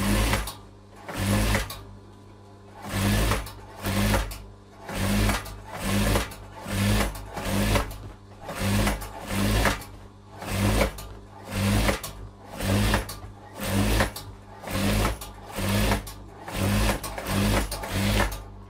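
Industrial sewing machine stitching a seam in short bursts, about one a second, each run lasting roughly half a second, over a faint steady motor hum.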